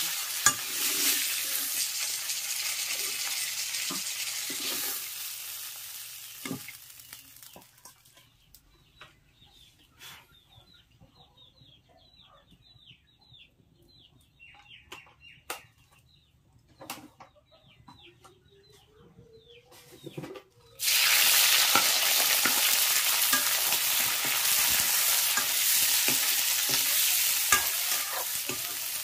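Hot oil sizzling in a metal wok as fried fish pieces are stirred and lifted out with a metal ladle. The sizzle dies away to a quiet stretch with faint chicken calls. About twenty seconds in, a sudden loud sizzle starts as sliced onions and chillies go into the hot oil, then keeps going under the scrape and clink of the ladle.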